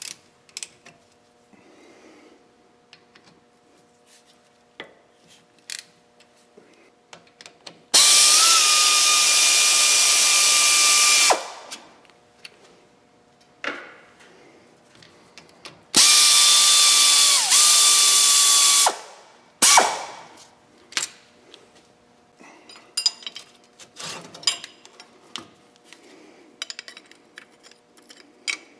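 A cordless power tool spins out the brake caliper bolts in two runs of about three seconds each with a steady whine, the second dipping once under load, then a brief third burst. Between the runs come clinks and ratchet clicks from hand tools on the caliper.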